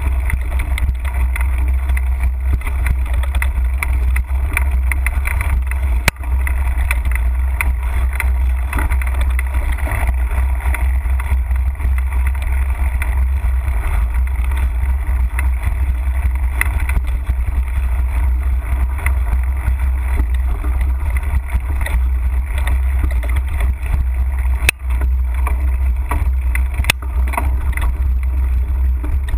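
A mountain bike riding over a dry, leaf-covered dirt trail, heard through a handlebar-mounted action camera: a steady low rumble of wind and vibration, with the rustle and rattle of the tyres and bike over the ground. Three sharp knocks stand out, one about six seconds in and two near the end.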